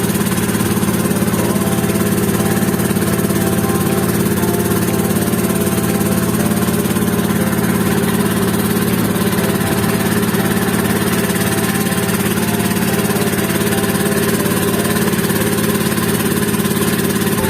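Small passenger boat's engine running steadily at constant speed during the ride, with an even, unchanging drone.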